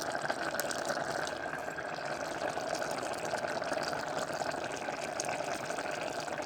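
Pot of rice boiling: a steady bubbling and popping of water.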